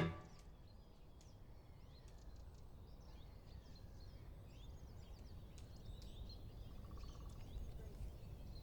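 Faint outdoor ambience: scattered short bird chirps and twitters over a low, steady background rumble, with a brief trill about three-quarters of the way through.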